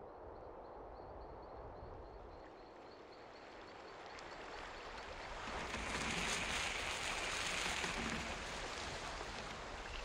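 Eerie night wind sound effect: a soft rushing haze that swells into a loud gust about six seconds in and eases off near the end. A faint, evenly repeating high chirp runs through the first half.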